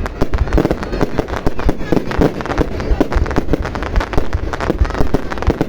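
Fireworks display going off: a dense, continuous barrage of overlapping bangs and crackles, with no pause between shots.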